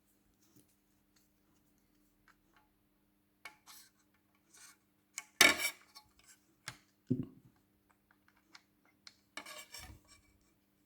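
Small plastic RC suspension arms and metal hinge pins being handled and fitted: scattered clicks and short rubbing scrapes. There is a sharp clatter about five and a half seconds in, another knock a little later, and a scraping rattle near the end.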